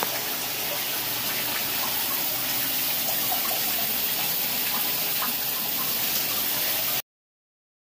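Shower running into a bathtub, a steady hiss of spray. It cuts off suddenly about seven seconds in.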